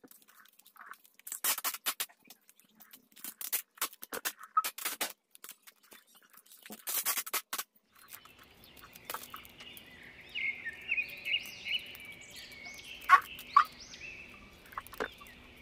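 Clear plastic wrap crinkling in loud bursts as the wrapped hamper is handled and turned. About halfway in, the crinkling gives way to a low steady hum and a high, repeated chirping.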